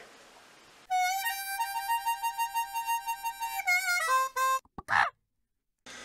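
A short comic music sting in a reedy, harmonica-like tone: one long held note that wavers in loudness, then a few quick notes stepping downward, then it cuts off.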